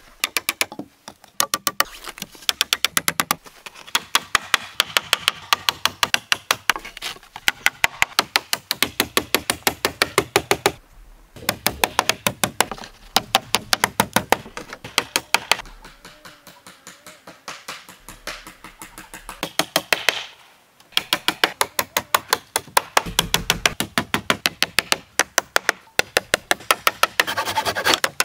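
Hammer driving nails into wooden pallet boards, in rapid runs of sharp blows with short breaks between.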